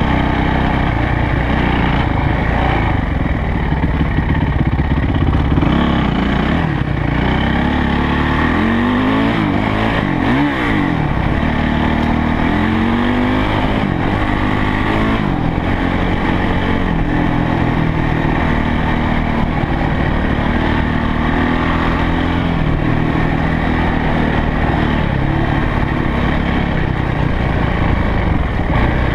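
Yamaha YZ450F's single-cylinder four-stroke engine under way on a dirt track, its pitch rising and falling again and again through the first half as the throttle is opened and closed, then holding steadier.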